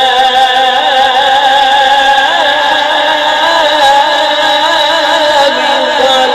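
A man reciting the Quran in the melodic tilawat style: one long, held phrase whose pitch wavers and turns in ornaments.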